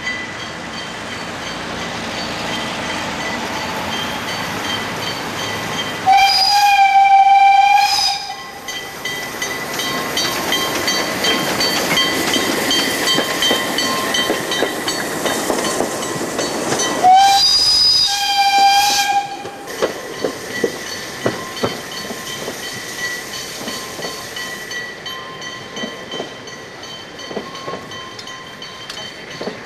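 Narrow-gauge steam locomotive sounding its steam whistle in two long blasts, about six seconds in and again about seventeen seconds in, as the train passes. Between the blasts the coaches run by close. The train then moves off with the wheels clicking over rail joints.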